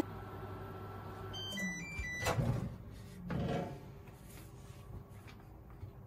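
Microwave oven humming as it runs, then stopping about a second and a half in with a short jingle of electronic beeps signalling that heating is done. A sharp click follows as the door is opened, and a second knock a second later as the dish is taken out.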